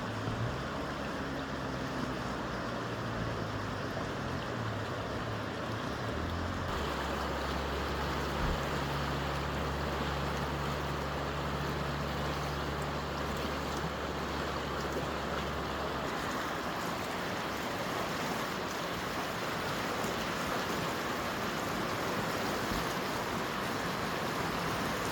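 A fast-flowing river in spate, its water rushing steadily. A low, steady rumble sits underneath until about two-thirds through.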